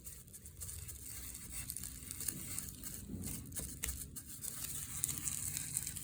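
Faint crinkling and light tapping of plastic bubble wrap being handled and pressed while painting, a few soft irregular ticks over a low steady hum.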